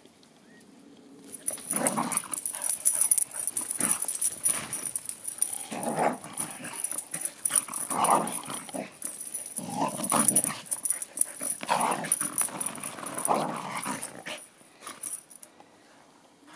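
Dogs growling at each other in rough play, in repeated short bursts that stop about two seconds before the end.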